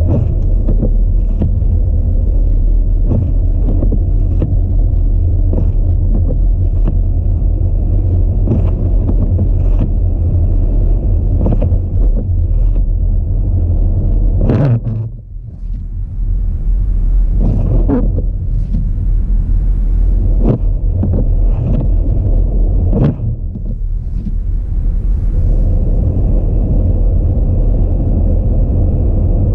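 Audi A4 driving on snow-covered roads: a steady loud low rumble of engine and road noise, broken by frequent short knocks, with a brief dip about halfway through.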